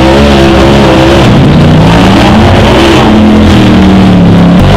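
Side-by-side UTV engine revving hard under load on a steep dirt hill climb, its pitch holding high and then sliding up and down. The sound changes abruptly near the end.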